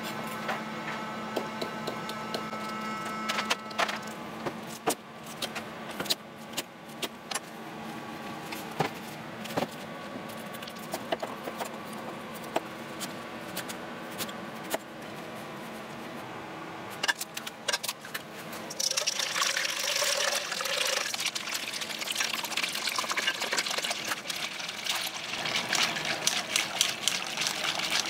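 A kitchen knife chops on a plastic cutting board, making sharp, irregular knocks as vegetables are cut. About two-thirds of the way through, a steady wet splashing takes over and grows louder toward the end, where a wire whisk is beating egg batter in a stainless-steel bowl.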